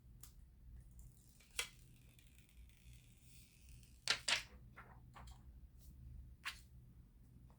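Handling noises: a few sharp clicks and taps, including a louder pair close together about four seconds in, with a soft scraping hiss lasting about two seconds near the start.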